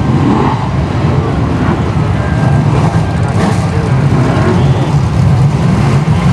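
A pack of Brisca F1 stock cars' V8 engines running together at low speed, a loud, steady low rumble as the cars roll slowly past.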